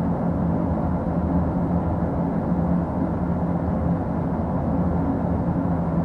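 Steady low rumble of distant city traffic with a constant hum underneath, unchanging throughout.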